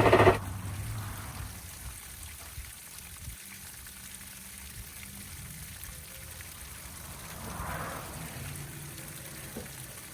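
An electric starter cranking the 2005 Johnson 60 hp EFI outboard cuts off just after the start without the engine catching, a sign of a weak battery. After that, the cooling water supplied to the motor keeps running and trickling steadily.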